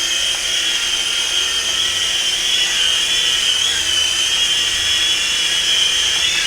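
Small electric rotor motors of a Syma S52H toy RC helicopter running with a steady high-pitched whine, dipping slightly in pitch a couple of times as the speed changes.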